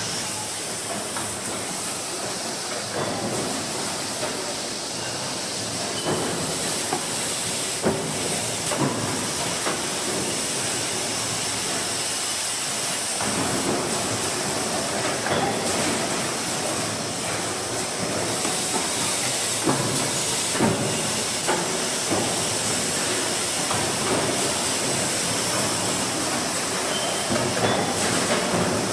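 Steady loud hissing noise from steel-fabrication machinery, with scattered short knocks and clicks.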